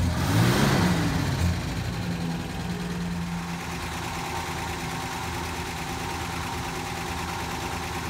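An engine-like motor sound revs up and down twice in the first second and a half, then settles into a steady mechanical drone with a faint constant whine.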